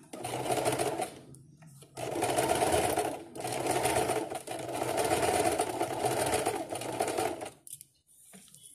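Electric household sewing machine stitching through pant fabric in two runs: a short run of about a second, a pause, then a longer run of about five and a half seconds with a brief slowdown, before it stops near the end.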